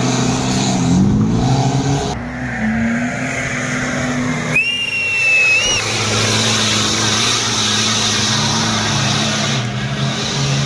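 Off-road 4x4 race vehicle engines revving and running on a rocky dirt track, the pitch rising and falling in the first two seconds and then settling to a steady drone. A single shrill whistle about a second long is heard near the middle.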